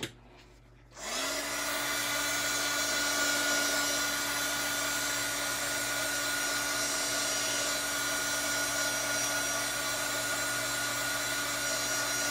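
Heat gun switched on about a second in, its fan motor spinning up with a brief rising whine and then blowing steadily to warm the epoxy on the tumbler so it spreads.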